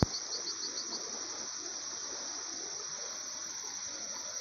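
Steady high-pitched chorus of insects in grassland, with a quick run of rapid chirps about half a second in. A brief click right at the start.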